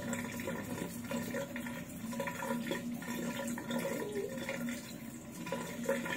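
Water running from a kitchen tap and splashing into a basin, with wet hands rinsing and rubbing a freshly caught sea eel under it.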